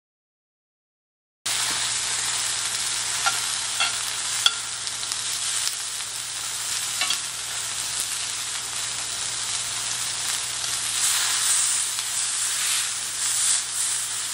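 Beef tenderloin steak with onions, mushrooms and tomatoes sizzling steadily in a cast-iron skillet. The sizzle starts after about a second and a half of silence, with a few light clicks a few seconds in.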